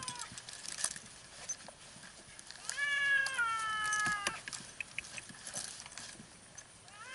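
Stranded cat meowing: one long, drawn-out meow about three seconds in that slowly falls in pitch, with the tail of another meow at the start and another starting at the end. Scattered light clicks between the calls.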